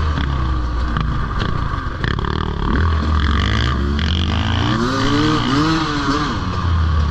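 Off-road dirt bike engine revving up and down over and over as the throttle is worked along a trail, with several rises and falls in pitch.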